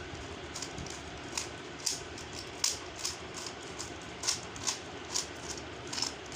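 Rubik's Cube layers being twisted quickly by hand: irregular plastic clicks and clacks, a few a second, as the cube is scrambled. A steady low hum runs underneath.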